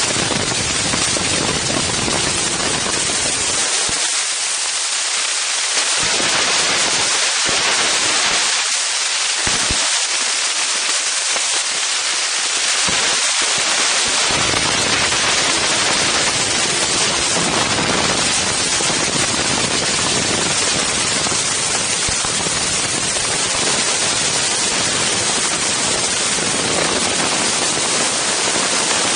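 Loud wind noise on the Insta360 One X camera's microphone: a steady hiss with a low, gusty rumble that drops out for a couple of stretches in the first half, then stays on.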